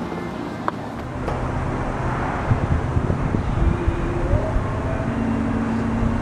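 Power soft top of a 2002 Chrysler Sebring convertible raising: a click, then from about a second in its motor runs steadily as the top unfolds and lifts, with the car's engine idling underneath.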